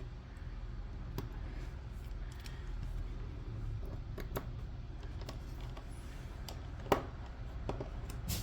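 Scattered light clicks and taps of hand tools working on a plastic laptop bottom case as it is unscrewed and pried open, with one sharper click about seven seconds in, over a low steady hum.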